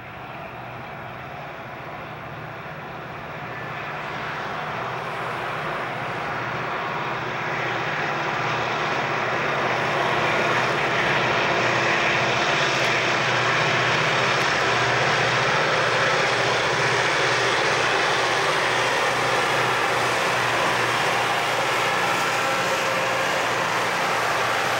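Southern Pacific diesel locomotives, four units, approaching under heavy power and passing, their engines a steady drone that grows louder over the first ten seconds or so and then holds. The train of cars rolls by near the end.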